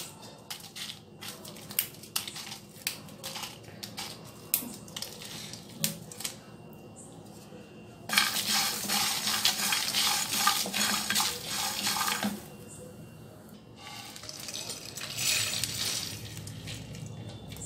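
Whole spices, almonds, coriander seeds and dried red chillies, dropped by hand into a dry non-stick frying pan with scattered sharp clicks. About eight seconds in they are stirred with a spatula for some four seconds, rattling and scraping against the pan as they dry-roast, and near the end they are tipped out of the pan onto a plate with a softer rattle.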